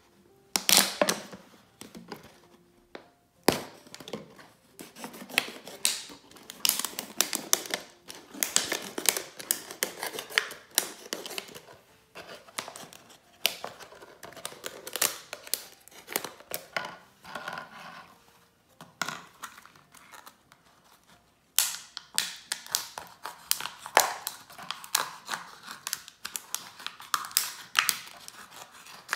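Thin plastic water bottle being cut with a small pocket knife: the blade punctures and saws through the wall with quick, irregular crackling clicks and crinkles, in bursts with short pauses.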